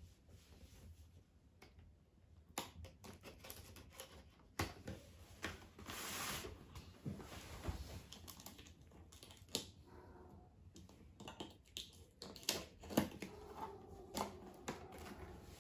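Cardboard box and plastic toy blaster being handled while packing tape is cut with a knife: scattered clicks, knocks and rustles, with a longer scraping rush about six seconds in.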